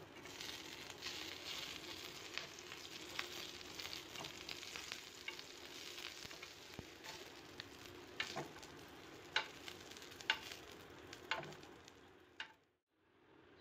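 Halved green chillies sizzling and crackling in a hot ridged grill pan, with a few sharp metal clicks of tongs on the pan in the second half. The sound drops out briefly near the end.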